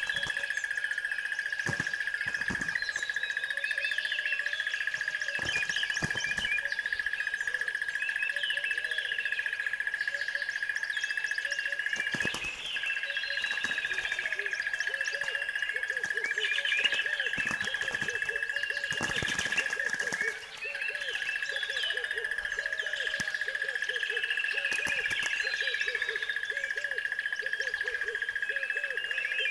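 Wild birds chirping and calling continuously over a steady high-pitched drone that drops out briefly twice, with a few sharp cracks in between.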